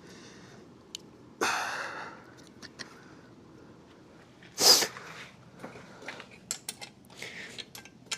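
Hand tools clicking and clinking on metal as a wrench is tried on a screw head in an outboard's lower unit. A short, sharp burst of noise comes about halfway through, the loudest thing here, with a softer burst that fades away about a second and a half in.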